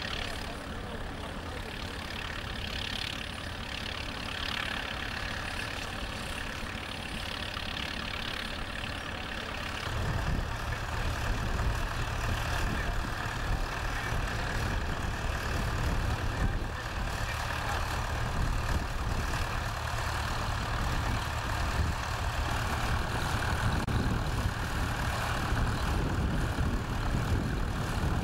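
Vintage tractor engines running under load while ploughing. About ten seconds in, the sound becomes louder and deeper as a blue Fordson Major with orange wheels pulls its plough close by, its engine running steadily.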